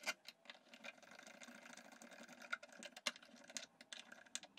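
Faint, irregular clicks and light scraping of a flathead screwdriver working in the slots of the long screws that fasten the shower valve to the pressure balancing unit. The sharpest click comes about three seconds in.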